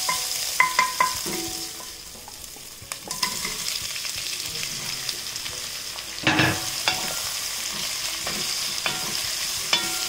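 Spices and chopped ginger sizzling in hot oil in a nonstick pot, stirred with a wooden spatula that clicks against the pot; sliced onions go in partway through and the stirring and sizzling carry on, with a louder knock about six seconds in.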